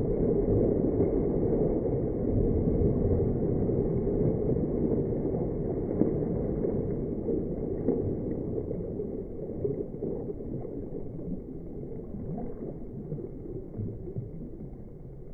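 Pool water churning and sloshing in the wake of a dog's dive, slowed down by the slow-motion playback so it sounds deep and muffled. It fades gradually as the water settles.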